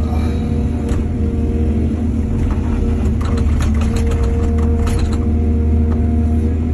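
Diesel engine of an excavator running steadily, with a run of clattering knocks about midway through.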